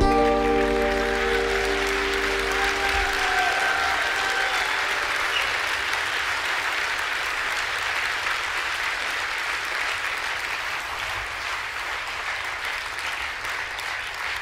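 Concert audience applauding after a song, while the song's closing chord rings out and fades over the first few seconds. The applause goes on steadily and slowly dies down.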